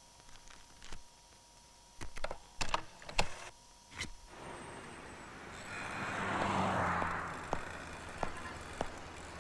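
Cash machine clicks and clunks as banknotes and then a card are fed into it: a handful of sharp clicks over the first four seconds. Then street traffic noise swells and fades, and footsteps tick at a walking pace near the end.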